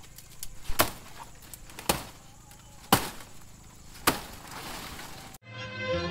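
Blade hacking at a palmyra palm, four sharp chops about a second apart. Background music comes back near the end.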